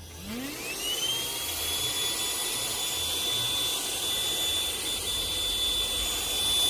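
Baseus A1 handheld car vacuum cleaner switched on: its motor spins up with a rising whine in about the first second, then runs at a steady high whine with rushing air.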